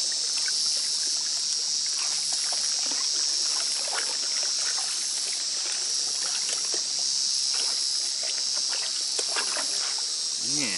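Insects chirring steadily in a high, unbroken band, the loudest sound, with small splashes and sloshes of water from hands working in algae-covered water.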